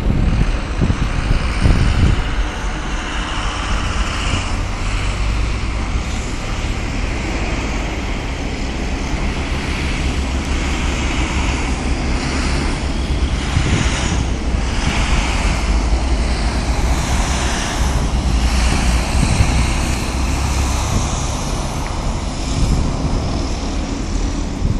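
Freight train's cars rolling through a crossing, a steady rumble and rush of wheels on rail, under heavy wind buffeting the microphone.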